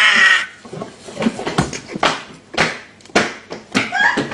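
A voice laughing or shouting cuts off about half a second in. Short, sharp breaths and gasps follow at irregular intervals, from the burning of a Scotch bonnet pepper just chewed.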